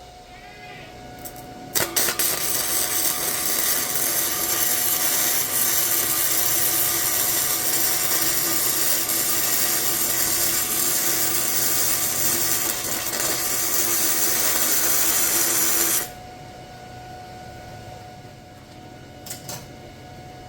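A handheld power tool grinding or sanding on steel, running steadily for about fourteen seconds and then stopping.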